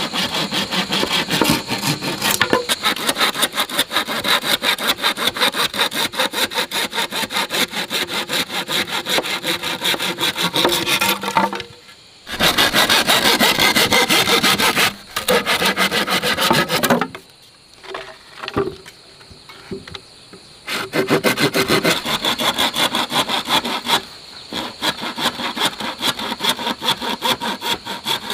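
Hand saw cutting through a green bamboo pole in quick back-and-forth strokes. The sawing breaks off briefly a little before the middle, and again for a few seconds past the middle, then resumes.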